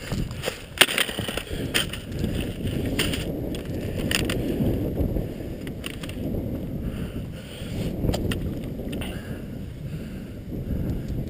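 Footsteps crunching through dry fallen leaves, heard as scattered crackles mostly in the first few seconds, over a steady low rumble of wind on the microphone.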